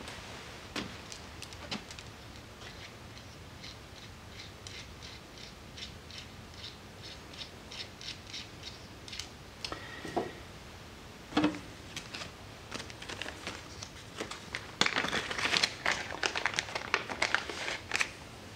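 Small metal fittings, washers and caps being handled and fitted on a fuel cell fill plate: a run of quick, evenly spaced light clicks for several seconds, one dull knock about halfway through, then a flurry of clicks and rattles near the end.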